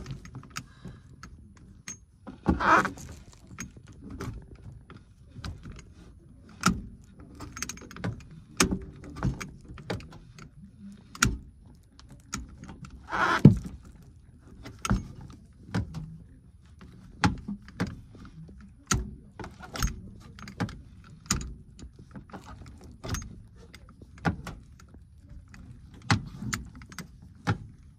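Irregular clicks, taps and rattles of hands working tools and parts on an HVAC installation, with louder knocks about three seconds in and about halfway through.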